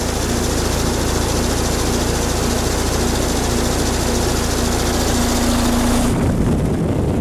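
Outdoor heat pump unit running in heat mode: a steady rush of air over a low compressor hum. About six seconds in, the high hiss drops away, leaving a rougher low rumble.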